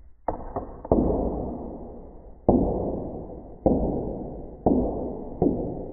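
Slowed-down knocks of the catapult's small ball striking and bouncing on the tabletop, each knock followed by a long fading ring. There are three quick knocks near the start, then a run of knocks that come closer and closer together, as a bouncing ball settles.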